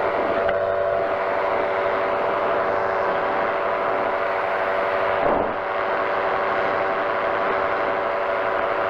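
Powered parachute's engine and pusher propeller running steadily in cruise flight, a constant multi-toned drone that dips briefly about five seconds in.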